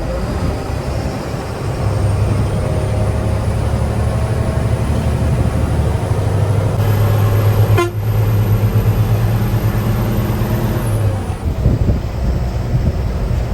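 Running noise inside a train locomotive's cab while under way. A steady low tone holds from about two seconds in and stops near eleven seconds, with a single sharp click about eight seconds in.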